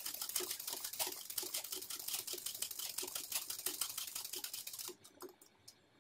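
Ordinary domestic sewing machine running fast, its needle stitching in a rapid, even clatter while satin-stitch filling an embroidery design. It stops about five seconds in, leaving a few faint clicks.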